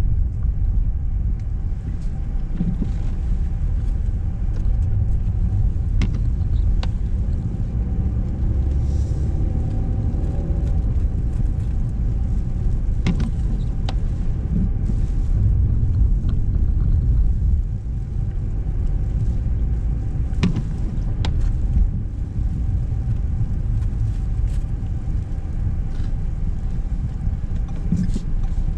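A car driving: a steady low rumble of engine and road noise, with a few sharp knocks scattered through. About nine seconds in, an engine note briefly rises and falls.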